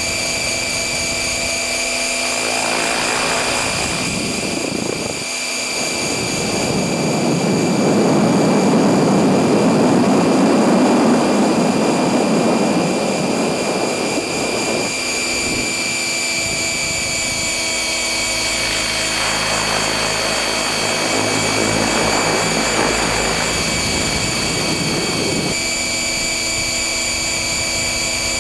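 Electric stretched Align T-Rex 600 radio-controlled helicopter in flight, heard from a camera slung beneath it: a steady high whine from the motor and drive with the rotor sound. A rushing noise swells up twice, from about six to fifteen seconds in and again around twenty seconds in.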